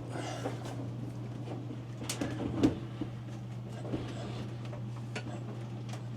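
A few light clicks and knocks from handling, the loudest about two and a half seconds in, over a steady low hum.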